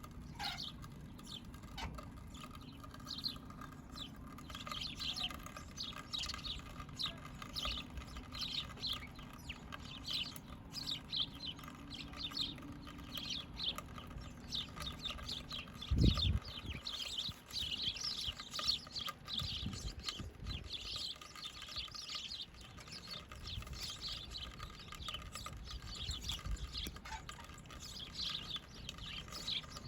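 A flock of small birds chirping and twittering continuously, many short calls a second overlapping. A single dull thump about halfway through.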